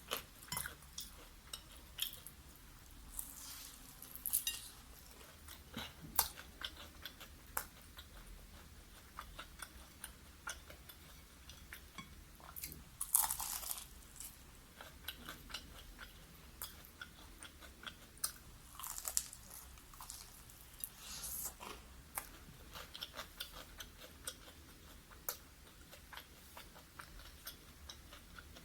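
Close-up crunching and chewing of crispy fried chicken: bites crackle on and off, with soft clicks in between, and the loudest crunch comes about 13 seconds in.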